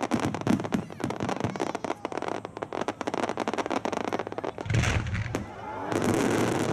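Fireworks finale: a dense, rapid crackle of many small shells bursting at once. About four to five seconds in, a heavy boom sets off a wide starmine barrage, and a thick wash of bursts follows.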